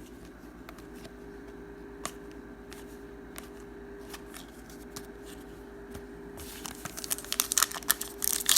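Trading cards being handled, a few faint clicks over a steady low hum. From about six and a half seconds in comes a dense crinkling and tearing: a foil card-pack wrapper being torn open.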